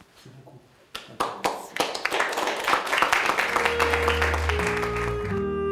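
Applause from a small group starting about a second in and building, then giving way to klezmer music from a clarinet-led trio, which comes in with long held low notes.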